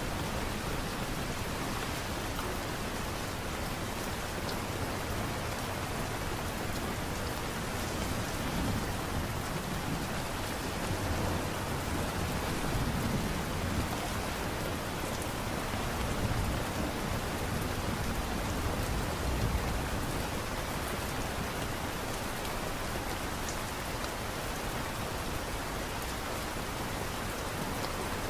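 Steady light rain falling, an even continuous patter with slow low swells of rumble in the middle.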